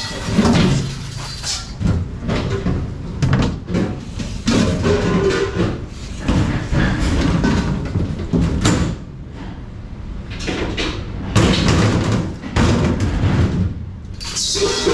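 Irregular clatter, knocks and bangs of dishes and racks at a dishwashing station, with door-like slams.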